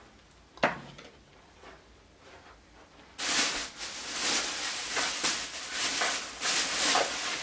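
Plastic shopping bag rustling and crinkling as it is handled and rummaged through, starting about three seconds in after a single short knock.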